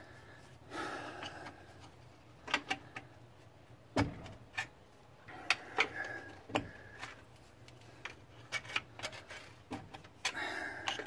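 A rusted brake drum on a 1950 Dodge Coronet being worked back and forth to break it loose from the hub: scattered metal clunks, rattles and brief scraping, with a sharper knock about four seconds in. The drum is stuck fast, likely never off since new.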